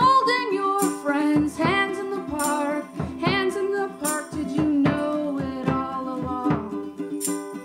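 A woman singing a song, accompanied by a plucked string instrument played in regular strokes.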